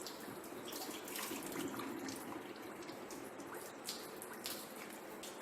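Green engine coolant trickling and dripping from an opened cooling-system hose, with a few faint clicks.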